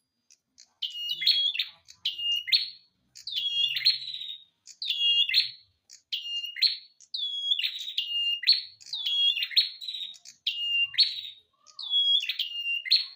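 A songbird singing the same short whistled phrase over and over, about once a second: a held note followed by a quick rising flourish.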